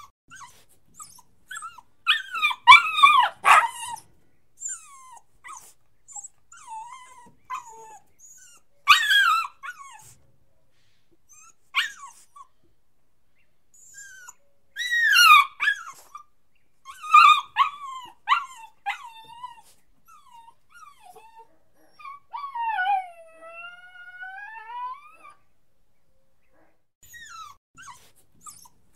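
A puppy whining and crying in irregular bursts of high-pitched, gliding cries with short pauses between. About two-thirds of the way through comes one longer drawn-out whine that dips and then rises.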